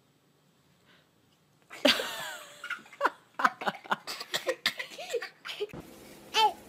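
Toddler giggling and laughing in a run of short, high bursts, starting about two seconds in after a near-silent pause.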